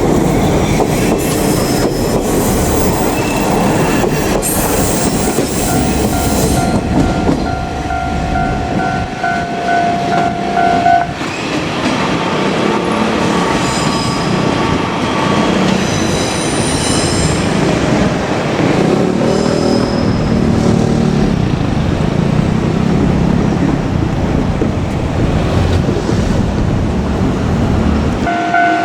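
A KiHa 47 diesel railcar running over a level crossing: steady diesel rumble and wheel clatter, with high wheel squeal partway through. The crossing's warning bell rings from about six seconds in and again near the end, after the rumble drops away.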